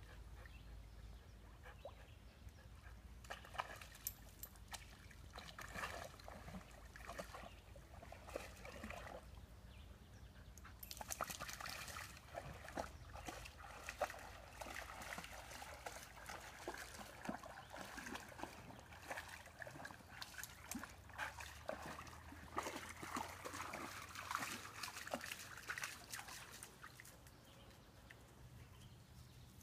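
Faint trickling and sloshing water, broken by many irregular small splashes and clicks.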